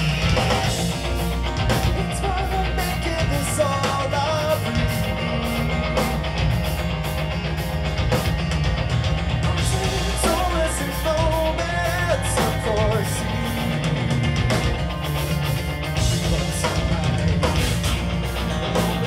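Live progressive metal band playing at full volume: distorted electric guitars, bass and a drum kit with crashing cymbals, and a vocalist singing over them.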